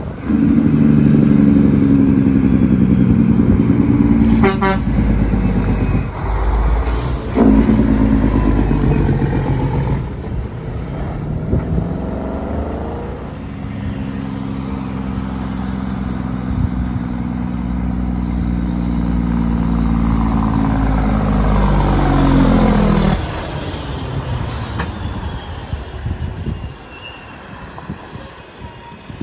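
Heavy trucks' diesel engine brakes (Jake brakes) running loud as the trucks slow on approach, heard in two separate passes. The second holds a steady pitch for several seconds, then drops in pitch as the truck goes by about two-thirds of the way through, leaving quieter traffic.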